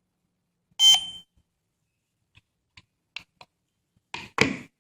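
Short high electronic beep about a second in from the alarm kit as the motion sensor is added, then a few faint clicks and a couple of louder knocks of handling near the end.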